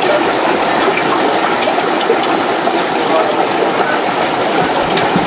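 Steady rushing of water through aquarium filtration and pumps, with a few faint ticks.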